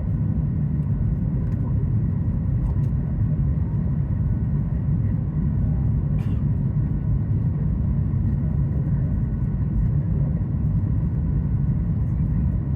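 Steady low rumble of a Boeing 737 MAX 8's engines and airflow, heard inside the passenger cabin, with a faint steady whine above it. A brief faint click comes about six seconds in.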